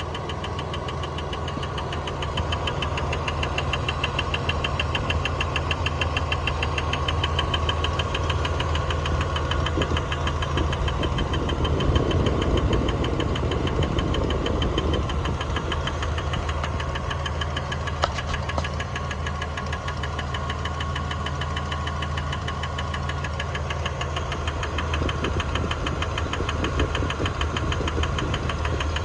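1999 Dodge Dakota's 3.9-litre V6 idling, with a rapid, rhythmic clicking running over the engine note. The owner suspects one of the belt pulleys, as the belt looks fine.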